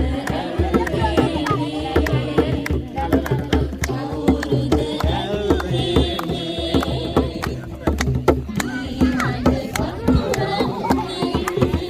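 Background music with tabla-like hand drumming and a bending melodic line, in the style of Indian classical music.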